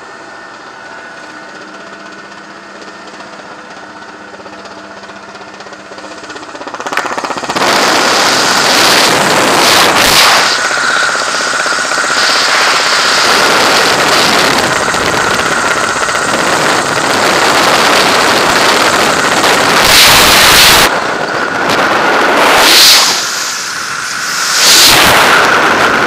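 Steady drone of a small propeller aircraft's engine heard inside the cabin. About seven seconds in it gives way to a loud rush of wind from the open door and then freefall, the wind buffeting the camera microphone and surging several times.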